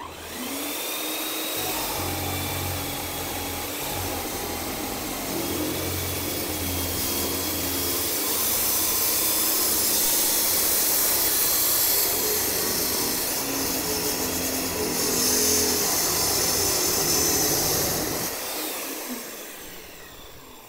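Weldinger TJ3000 abrasive metal chop saw with a 355 mm cut-off disc: the motor soft-starts and runs up, then the disc grinds through a square steel tube with a loud hiss for about ten seconds. Near the end the saw slowly winds down.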